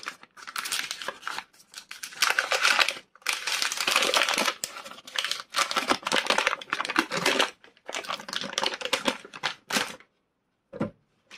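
Paper wrapper of a block of lard being peeled off and crinkled by hand, in irregular rustling bursts that stop shortly before the end.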